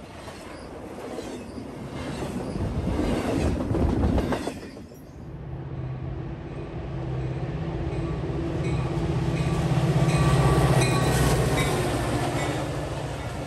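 Intermodal freight train cars rolling past close by, wheels clattering over the rails, cut off about five seconds in. Then a Metra commuter train's diesel locomotive approaches and passes, its steady engine hum growing louder.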